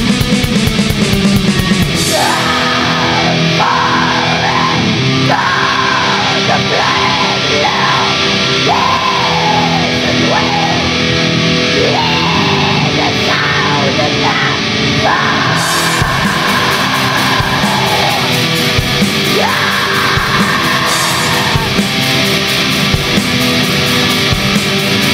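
Black metal music: distorted electric guitars and drums, with a fast, dense passage giving way about two seconds in to a section with a bending melodic line over it.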